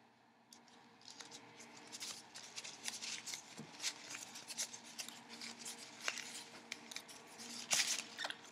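Folded paper origami model crinkling and rustling as hands fold and handle it, a run of short, crisp crackles that starts about a second in and is loudest near the end.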